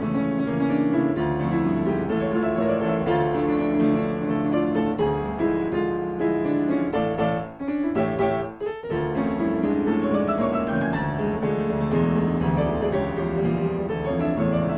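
Piano music, dipping briefly twice about halfway through.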